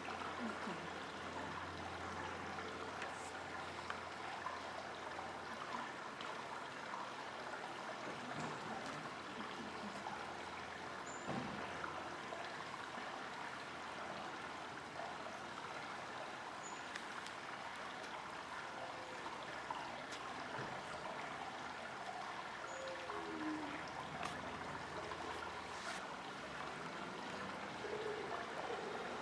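Steady rushing of running water, like a stream, over a low steady hum, with a few faint short high chirps.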